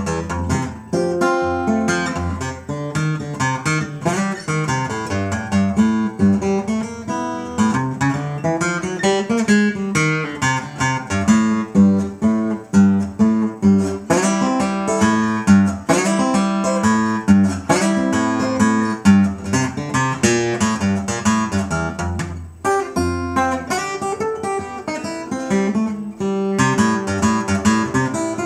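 Solo acoustic guitar fingerpicked in ragtime blues style, a steady thumbed bass line under quick runs of treble melody notes.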